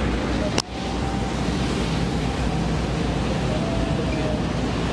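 Whale-watching catamaran under way: steady rush of wind and water over a low engine drone. There is a sharp click and a brief drop in level about half a second in.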